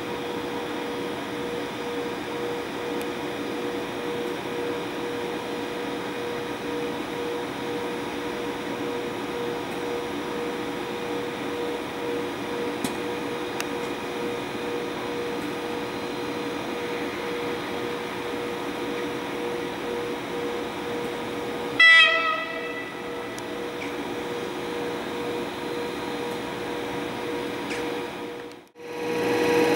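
Stationary British Rail Class 92 electric locomotive standing powered up: a steady electrical hum with a pulsing mid-pitched tone. About two-thirds of the way through, a short, loud pitched toot sounds once.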